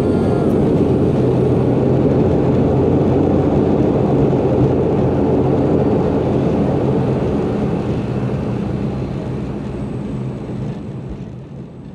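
ATR 42 turboprop engine and propeller running, heard from inside the cabin: a steady drone with a low propeller hum that fades away over the last few seconds.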